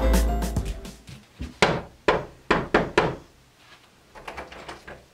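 Background music fading out, then a series of short sharp thunks and clicks of a door being handled at its knob, followed by a few fainter clicks near the end.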